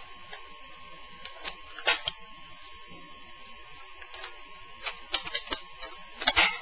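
Plastic clicks and snaps of a disposable camera's front case being pressed back onto its body: scattered light clicks, a louder snap about two seconds in and a quick cluster of snaps near the end.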